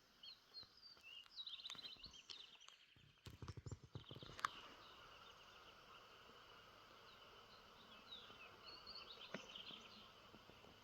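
Quiet outdoor ambience: faint high chirping and trilling in the background, with a few soft knocks of steps or handling about three to four seconds in.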